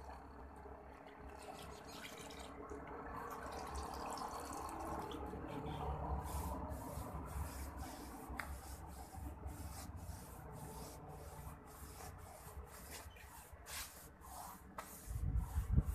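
Paintbrush strokes scraping over rough, cracked plaster, about two strokes a second from about six seconds in, with a few heavier low bumps near the end.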